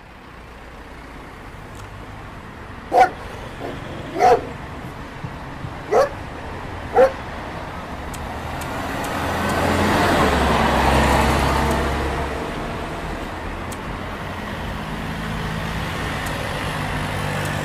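Street traffic ambience with a dog barking several times in the first half, the barks the loudest sounds. Midway a vehicle passes, its noise swelling and fading.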